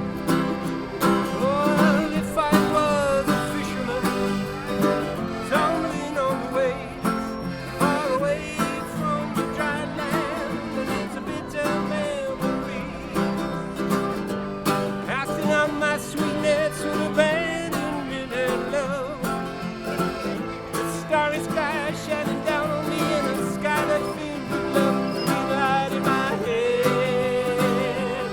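Country-bluegrass music: a singer with acoustic guitar and other string instruments.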